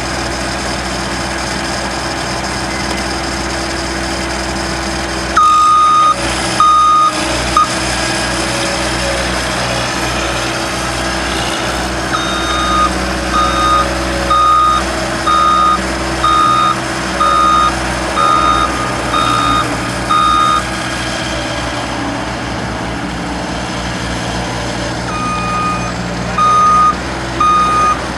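Skid steer engine running steadily while its reversing alarm beeps in spells: a few beeps about five seconds in, a run of about nine evenly spaced beeps roughly one a second in the middle, and three more near the end.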